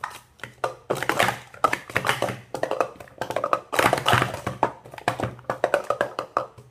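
Yongjun Mini Jumbo plastic sport-stacking cups being rapidly upstacked and downstacked, a fast run of light plastic clacks and taps as the cups are set down, lifted and slid together.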